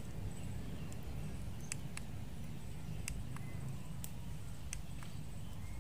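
Irregular sharp clicks and taps from a hand-held portable LED camping lantern being handled, over a steady low rumble.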